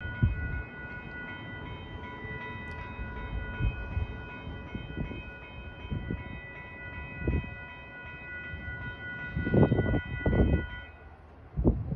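Locomotive horn sounding one long, steady blast for an approaching train, cutting off about eleven seconds in, over low gusty rumbles that swell near the end.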